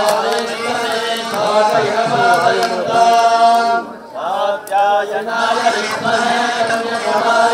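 Mantras chanted during a Hindu pooja, sung on long held notes that step up and down in pitch, with a short break and a quick sliding phrase about four seconds in.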